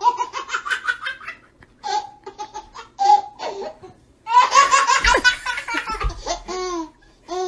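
Baby laughing hard in several bouts of rapid, high-pitched giggles, the longest run coming about halfway through.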